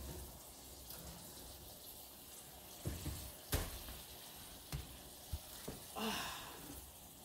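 A metal sheet pan being slid out of a hot oven: a few light knocks and clatters of the tray and oven rack, the sharpest about halfway through, over a faint background hiss.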